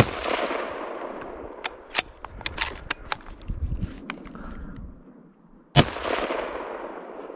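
Two rifle shots from a Christensen Arms Ridgeline Titanium in 28 Nosler, about six seconds apart, each followed by a long echo dying away. A few sharp clicks fall between the shots.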